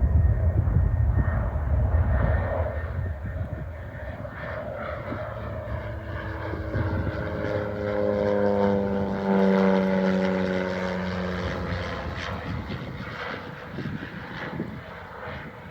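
Cessna 208B Grand Caravan's single PT6A turboprop engine and propeller running at high power. A deep rumble comes first; about halfway through, a strong propeller hum swells and then dips slightly in pitch as it fades.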